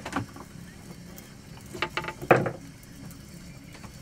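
Fishing boat's engine idling with a steady low hum. A few short knocks and clatters come around two seconds in.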